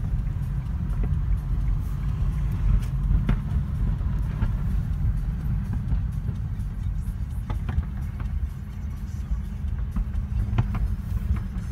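Steady low rumble of a car cabin in slow traffic, with three faint sharp cracks of distant fireworks a few seconds apart.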